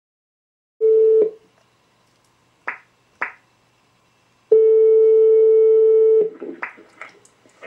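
Ringback tone of an outgoing internet phone call: a short steady beep about a second in, two brief clicks near the middle, then one long ring tone of under two seconds. A few faint line noises follow near the end.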